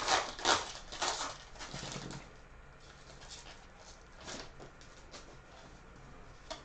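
Football trading-card packs and cards being handled, with a few sharp rustles in the first two seconds and faint scattered ticks and rustles after that.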